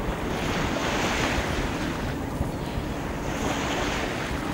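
Water rushing and splashing along a moving tour boat's hull, swelling twice, with wind on the microphone and a low, steady engine rumble underneath.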